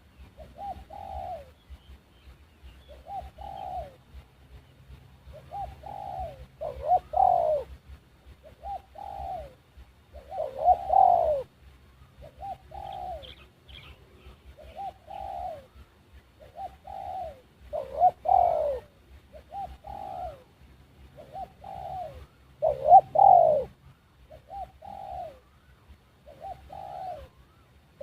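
Dove cooing over and over in short phrases, roughly one a second, with a few louder calls that fall in pitch.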